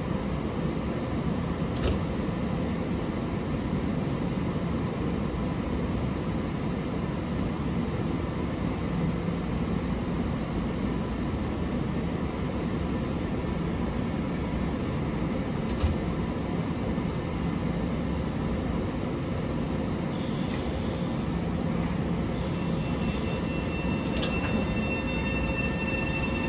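Long Island Rail Road train at the station: a steady rumble of running gear and wheels on the rails, with a couple of short clicks and a rising whine near the end.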